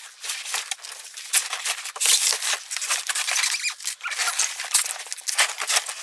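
Foam packing and cardboard squeaking, scraping and rustling as a foam-wrapped electric bike is lifted out of its shipping box. The sounds are a dense run of irregular scrapes.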